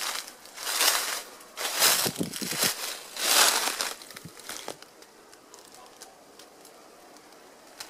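Footsteps crunching through dry fallen leaves: about four steps a second or so apart, stopping about four seconds in.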